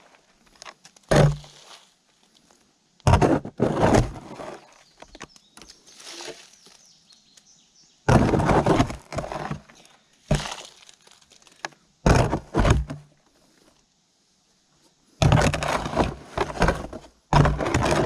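Concrete mix being scraped and packed around a post, heard as irregular crunching, scraping bursts with pauses between them.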